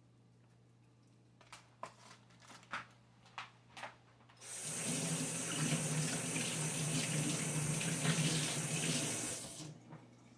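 A few light clicks and knocks, then a kitchen tap runs into the sink for about five seconds and is shut off.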